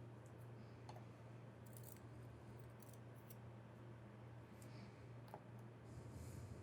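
Near silence over a steady low hum, with a few faint clicks of tiny lock springs and pins being handled while a padlock core is repinned.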